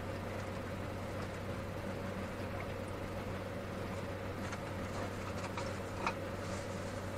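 Steady low hum of a car's idling engine and air conditioning heard inside the cabin. From about four and a half seconds in come faint gulps and soft crinkles of a plastic water bottle as someone drinks.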